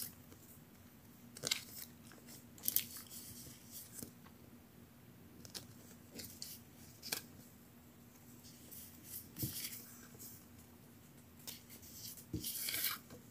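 Packaging being handled and opened by hand: scattered crinkles, rustles and light taps of plastic and paper, a dozen or so short bursts, over a faint steady hum.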